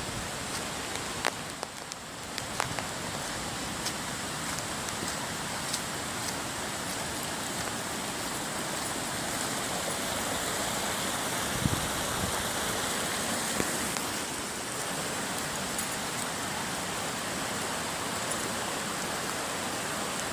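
Steady hiss of heavy hurricane rain, with scattered sharp drop ticks, mixed with the rush of a flooded creek.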